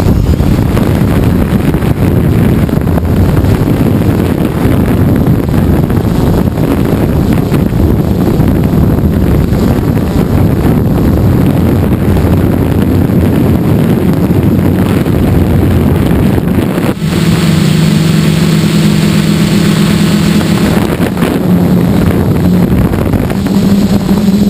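Gaui 330X-S quadcopter's electric motors and propellers, heard from the GoPro mounted on it. The motors start suddenly and run loud through the takeoff and flight, with wind on the microphone. About seventeen seconds in, a steady pitched hum comes through more clearly.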